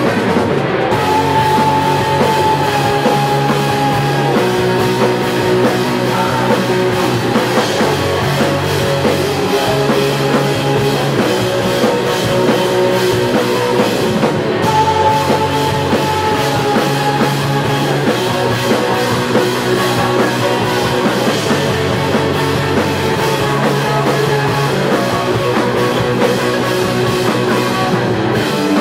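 Live rock band playing loudly: distorted electric guitars over a drum kit with crashing cymbals, with long held guitar notes about a second in and again around the middle.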